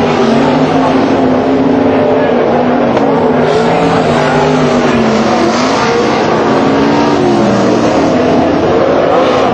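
Sprintcar V8 engines racing on a dirt oval: several cars running loud and hard at once, their engine notes rising and falling as they lap through the turns and past.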